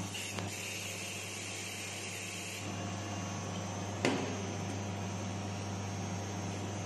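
An aerosol spray can hissing as it is sprayed for about two and a half seconds, over a steady machine hum, then a single sharp click about four seconds in.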